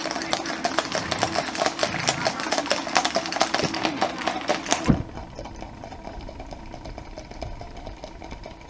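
Hooves of a group of Icelandic horses clip-clopping on wet asphalt, a dense, overlapping patter of many hoofbeats. About halfway through it abruptly becomes quieter, with a low rumble underneath and fainter hoofbeats going on.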